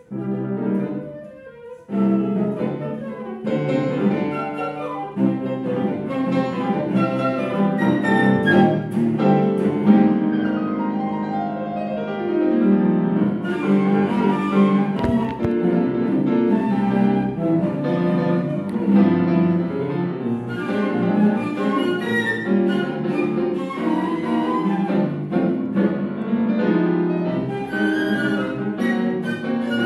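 Live chamber music from a violin and cello ensemble, played continuously after a brief pause at the start, with one slow downward slide about twelve seconds in.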